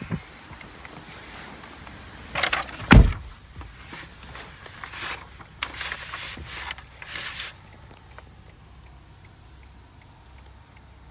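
Pickup truck cab door shutting with a heavy thump about three seconds in, among handling and rustling noises. Faint, even ticking follows near the end.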